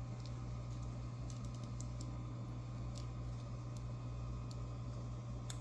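Faint, scattered light clicks from small metal lock parts and tools being handled while reassembling a padlock, over a steady low electrical hum.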